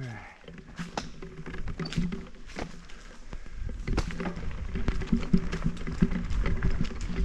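Cannondale Habit mountain bike riding a dirt trail: rolling tyre noise with frequent clicks and rattles from the bike over bumps, getting louder as it goes.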